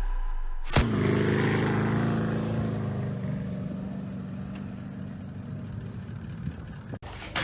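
A motor vehicle's engine running with a steady hum that slowly fades away over several seconds, after a sharp click about a second in.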